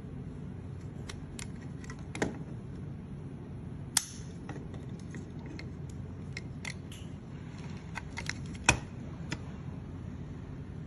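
Hard plastic parts of a transforming robot figure's leg clicking and knocking as they are handled and worked with a thin metal tool, in scattered small ticks with three sharper snaps about two, four and nine seconds in, over steady low background noise.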